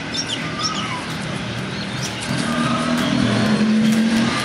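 Outdoor ambience of a steady engine hum that grows louder about halfway through, with birds chirping briefly near the start.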